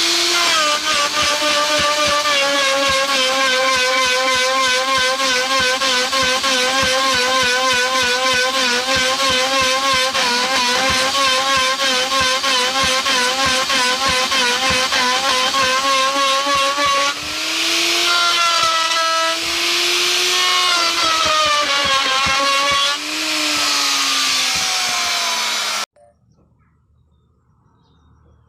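Large Maktec electric router running while cutting wood: a loud motor whine that wavers and sags in pitch under load, with a fast ticking throughout. It cuts off suddenly near the end.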